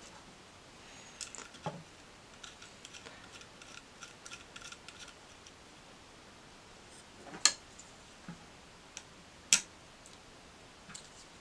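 Small metal screws and standoff pillars being fitted to a Raspberry Pi circuit board with fingers and a small screwdriver: faint scattered clicks and ticks, then two sharper clicks about two seconds apart in the second half.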